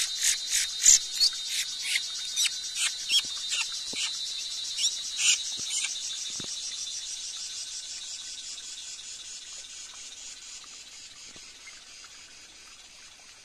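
Short, sharp bird calls repeated two to three times a second over a steady high buzz of forest insects; about six seconds in the calls stop and the insect buzz fades away.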